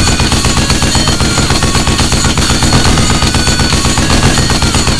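One long, continuous burst of rapid automatic fire with a machine-gun clatter.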